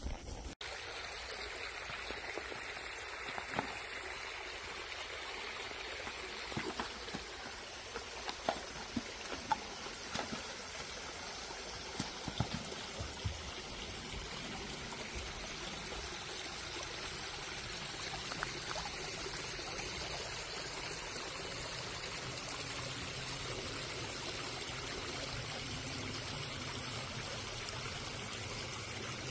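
A shallow creek trickling and running steadily, with a few faint knocks scattered through the first half.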